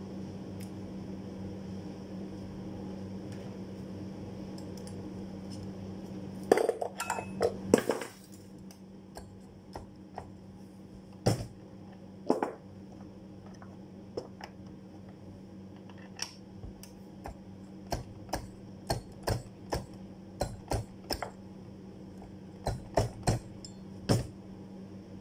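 Steel rule blade clinking against a hand rule-bending tool: a quick run of sharp metal clicks about six to eight seconds in, then scattered clicks and taps. A steady hum stops about eight seconds in.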